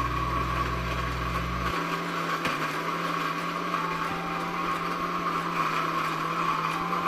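Electric countertop blender running steadily, grinding shallots, soaked dried chillies and dried shrimp into a paste for sambal.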